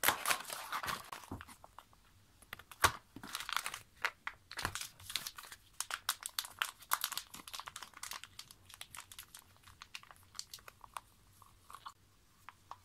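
Hair-dye packaging being handled: irregular crinkling and crackling with scattered sharp clicks, the loudest about three seconds in, thinning out towards the end.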